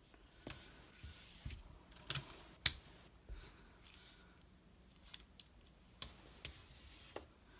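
Hands pressing and smoothing clear tape along the edges of fabric stuck to a sheet of paper: scattered sharp paper clicks and crinkles, the loudest a single snap about two and a half seconds in.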